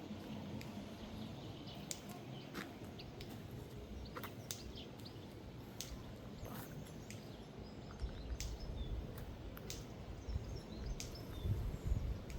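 Outdoor ambience with scattered short bird chirps over a steady low background noise, with louder low rumbling in the last few seconds.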